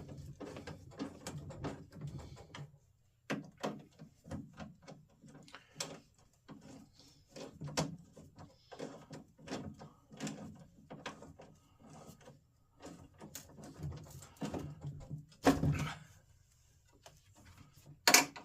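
Irregular clicks and clunks of hand tools and metal door-latch hardware being worked by hand, with a louder knock about fifteen seconds in and another near the end.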